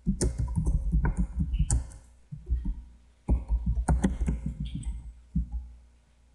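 Fast typing on a computer keyboard: two quick runs of keystrokes with a short pause between them, stopping about five and a half seconds in.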